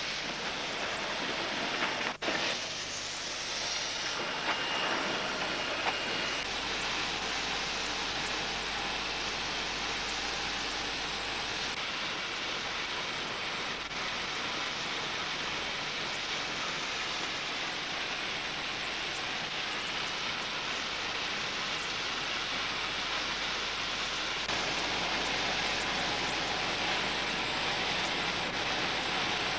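Steady hiss of steam and running noise from South African Railways class 25 condensing steam locomotive 3511, with no exhaust beat.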